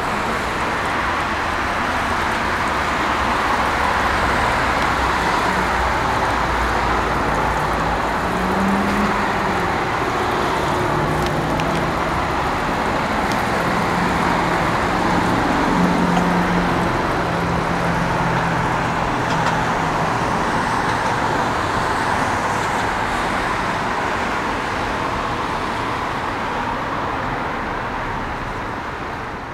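Steady road traffic noise, with the low drone of a vehicle engine through the middle stretch.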